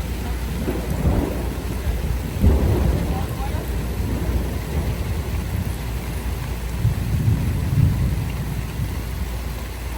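A thunderstorm: steady rain with a continuous low rumble of thunder that swells and fades.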